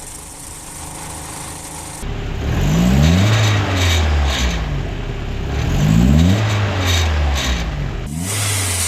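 A car engine idling, then revved twice about two and six seconds in, with a rattle at the exhaust manifold. The rattle comes from loose parts or a sheet-metal shield left without its bolts, which rattles on acceleration.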